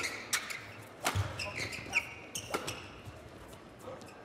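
Badminton rally: a quick irregular series of sharp racket hits on the shuttlecock, most of them in the first three seconds, with short squeaks of court shoes in between.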